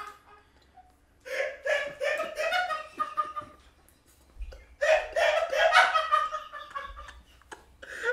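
A man laughing in two bouts, the second starting about halfway through.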